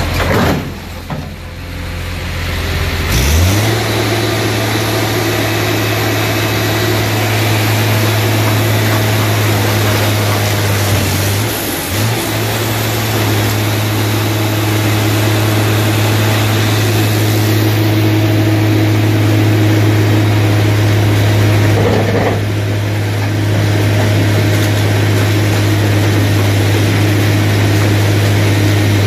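Hydraulic drive of a Presse Bull Genius scrap-car press running under load as it compacts a car body: a loud, steady low hum that comes on strongly about three seconds in and dips briefly near the middle, with a few sharp knocks.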